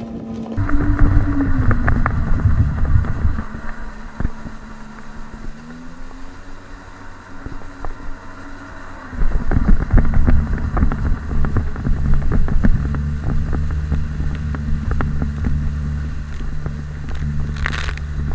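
Sea-Doo 3D jet ski's two-stroke engine running at speed, heard close up from on board with wind rushing over the microphone. The engine eases off for a few seconds about midway, then the loud rush comes back about nine seconds in and holds steady.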